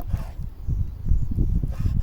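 Wind buffeting the microphone in gusts, with brief rustling near the start and again near the end.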